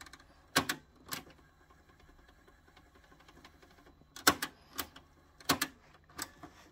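Piano-key transport buttons of a Hitachi MS-W600E boombox's cassette deck being pressed and released, giving sharp mechanical clicks: two in the first second or so, then a run of about six from about four seconds in.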